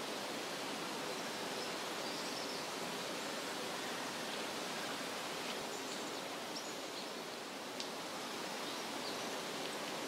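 Steady outdoor nature ambience: an even rushing hiss, with a few faint high chirps and a single sharp click about eight seconds in.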